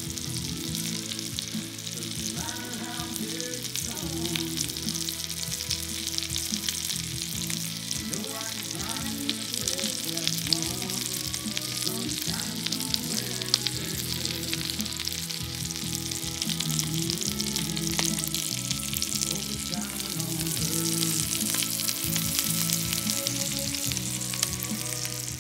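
Venison loin searing in butter in a cast-iron skillet: a steady, crackling sizzle of hot fat spitting around the meat.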